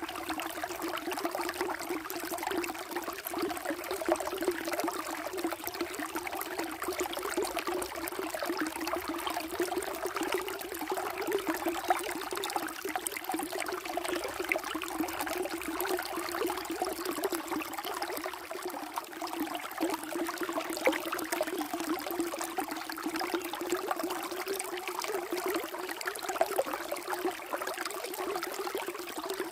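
Water flowing steadily, an unbroken rushing and splashing that keeps the same level throughout.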